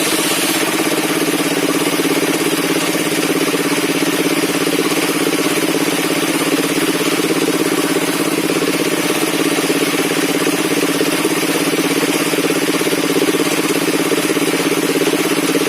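Circular sawmill machine running with a steady, even mechanical drone that holds unchanged throughout.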